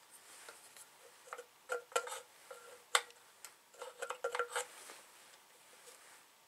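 Irregular clicks and light metallic clinks of tools and parts being handled on an old McCulloch 250 chainsaw, thickest in the middle, some with a brief ringing tone.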